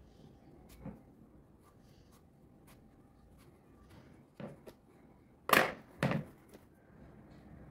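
Kitchen handling sounds over quiet room tone: a few light knocks, then two louder, sharp knocks about half a second apart, a little past halfway.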